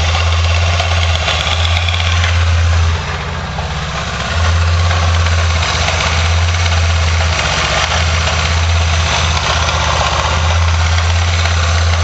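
Hyosung Comet GT125's V-twin engine idling with an odd noise, which the owner traces to the top end of the rear cylinder. The running sound dips briefly about three seconds in.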